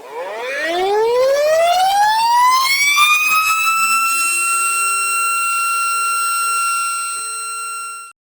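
Tornado warning siren winding up, its pitch rising steadily for about three to four seconds and then holding one steady high wail. It cuts off suddenly near the end.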